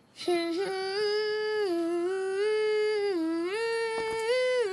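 A child's voice humming a slow, wordless tune: one unbroken hum that steps up and down between a few held notes.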